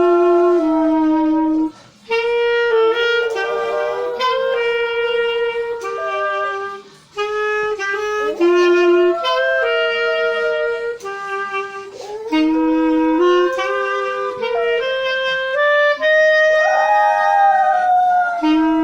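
Clarinet playing a slow hymn melody in held notes, with a pinscher howling along in wavering, gliding tones several times over it.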